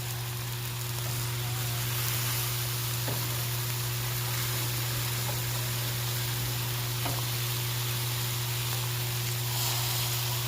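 Steak and pork chops sizzling steadily on a 22-inch Blackstone propane griddle, under a steady low hum.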